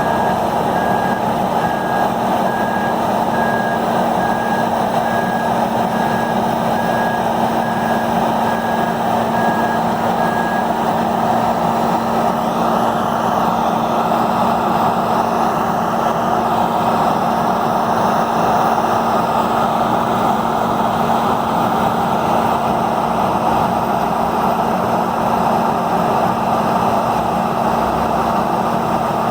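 Peterson 5710D horizontal grinder running hard at full load: a loud, steady din of engine and grinding with a constant low hum. A vehicle's backup alarm beeps about once a second over it and stops about eleven seconds in.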